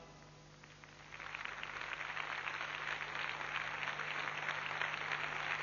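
Audience applauding after a band's number. The clapping starts about a second in, builds quickly and then holds steady, with a faint steady hum underneath.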